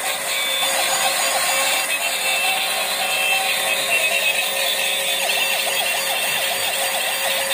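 Electronic siren sound effect from a battery-powered toy police pickup truck, a repeating wavering tone over steady high notes.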